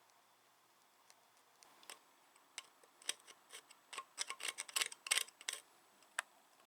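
A run of light, sharp clicks and taps, a few scattered at first and then in quick clusters around four to five and a half seconds in, with one last click after; the sound cuts off abruptly near the end.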